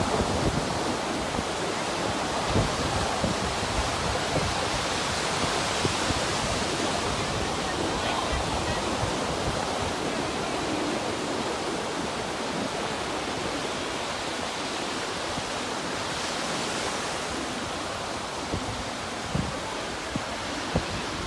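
Sea surf: a steady wash of waves, with wind knocking now and then on the microphone.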